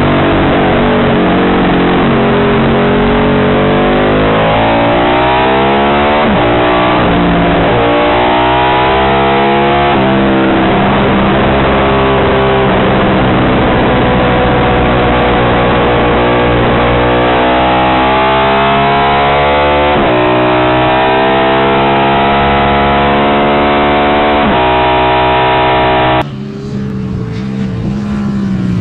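Short-stroke Ducati 750 Imola bevel-drive desmo V-twin racing engine heard onboard, loud under hard acceleration, the revs climbing and then dropping sharply several times at gear changes and braking. About 26 seconds in, the sound switches to a quieter engine heard from the trackside.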